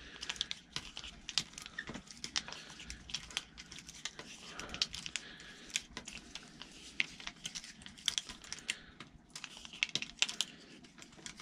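Allen key turning a small bolt at a bicycle frame's rack mount, making a scatter of light, irregular metal clicks and ticks.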